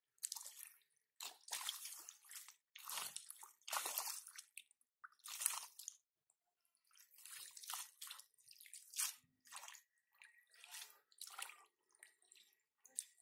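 Bare feet squelching in soft mud and shallow muddy water: a series of irregular wet squishes and sloshes, with a short pause about halfway through.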